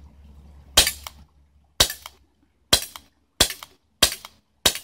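CO2 BB pistol firing six shots, about one a second and coming a little faster toward the end. Each is a sharp pop with a short ringing tail and a fainter tick a moment later.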